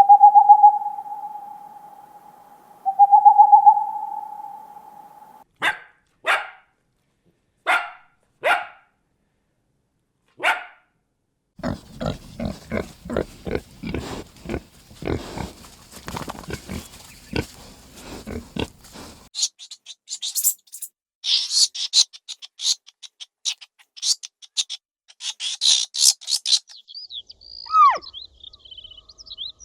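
A run of different animal sounds. First come two long, steady calls, then five short, sharp barks spaced a second or so apart. After that is a long stretch of rapid low grunting, then high, busy chirping and a falling whistle near the end.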